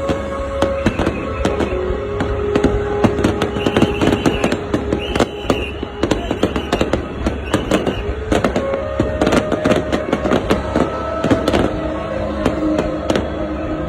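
Low-altitude fireworks going off in a dense, rapid string of cracks and pops, with music playing underneath.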